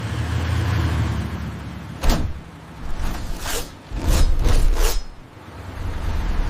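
Action sound effects: a low rumble, a sharp hit about two seconds in, then a quick run of four or five swishing, clanking strokes before the rumble returns.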